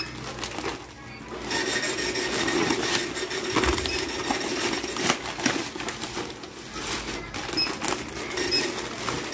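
Supermarket checkout: a barcode scanner gives a few short beeps as items are scanned, over a plastic carrier bag rustling and goods being handled and packed.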